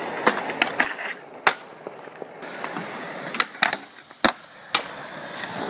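Skateboard wheels rolling on concrete, broken by several sharp clacks of the board striking the ground and a concrete ledge during tricks.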